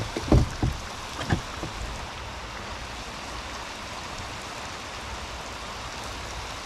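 Steady rain falling on the lake surface, an even hiss. A few dull knocks sound in the first second and a half.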